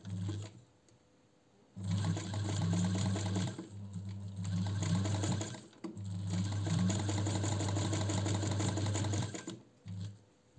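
Singer 216 zigzag sewing machine stitching: motor hum under rapid, even needle clatter, in several runs of a few seconds each with short stops between. It is sewing the narrow zigzag along one side of a buttonhole, with the needle shifted to the left.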